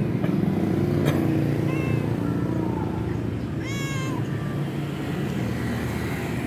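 Weak, hungry stray tabby cat meowing twice: a faint short meow about two seconds in and a louder, clearer meow about four seconds in. A steady low rumble runs underneath.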